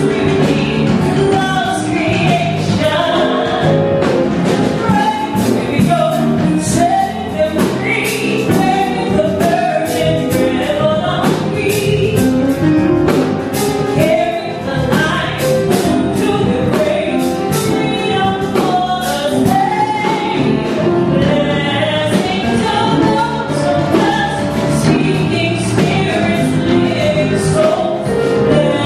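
Live gospel-tinged jazz: singing over piano and drum kit, with frequent cymbal strokes.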